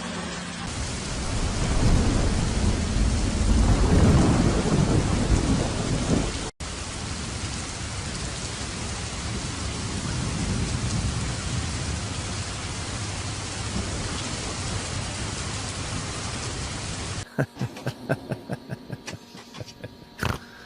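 Steady loud rushing noise that swells with a deep rumble between about two and six seconds in, breaks off at a cut, and goes on more evenly. A quick run of clicks and knocks follows near the end.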